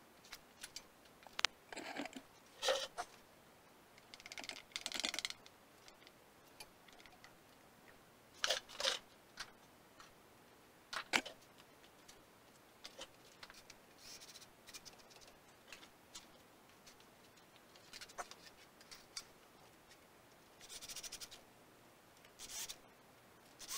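Intermittent clicks, taps and short scrapes of metal parts being handled and fitted together while an electric jackhammer's housing is reassembled.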